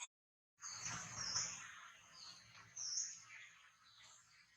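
Short, high-pitched chirping calls, a few of them spaced about a second and a half apart, starting about half a second in over a soft rustle.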